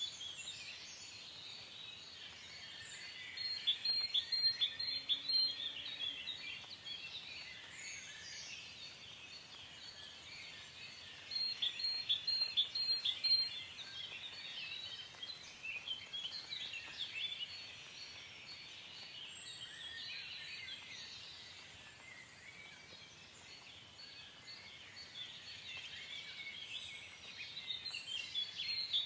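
Birdsong ambience: a dense chorus of chirping birds, with one louder bird repeating a quick run of five or six short, high notes three times, at about four seconds, twelve seconds and near the end.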